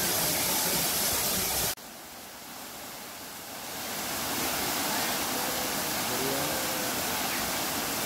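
Water rushing down a waterfall, a steady loud rush. It cuts off suddenly about two seconds in, and a quieter rush of water sliding over a sloping rock cascade builds back up from about four seconds.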